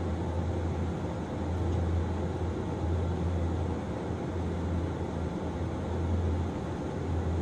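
Running sound of a Hiroshima Electric Railway 1900-series tram, car No. 1905: a steady low hum and rumble that swells and dips slightly, with no distinct clicks or knocks.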